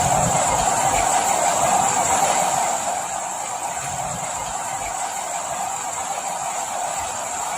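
Steady rain, an even hiss that eases slightly about three seconds in.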